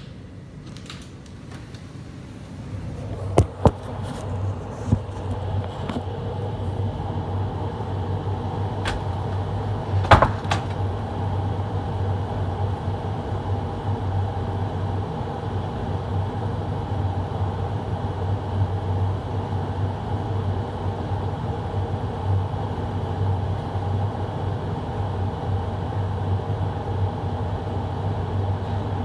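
Carrier air handler's blower running steadily with a low hum, a few sharp clicks or knocks in the first ten seconds; the sound swells over the first few seconds, then holds.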